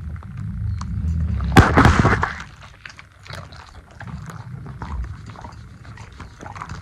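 A dog chewing and crunching peanuts in their shells, with small clicks throughout and one loud crack about a second and a half in, over a low rumble.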